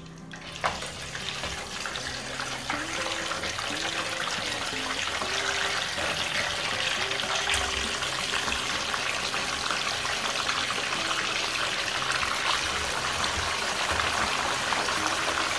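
Chicken pieces going into hot vegetable oil and frying: a dense, steady sizzle and crackle that starts with a sharp hit a little under a second in.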